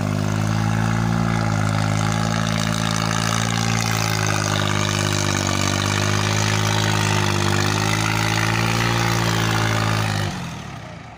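New Holland 3600-2 tractor's diesel engine running steadily under load, pulling a seven-tine cultivator through dry soil. Near the end the engine sound drops away suddenly.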